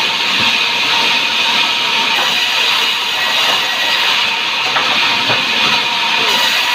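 Sawmill saw cutting timber: a loud, steady hissing noise with a faint steady tone beneath it and a few light clicks.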